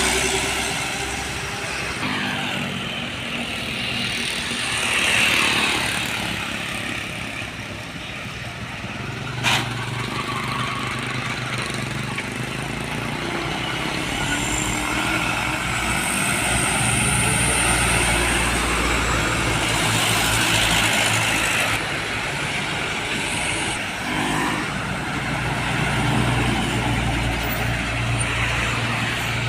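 Heavy diesel trucks going past on a road, engine noise swelling and fading as each one passes, with one sharp click about nine and a half seconds in.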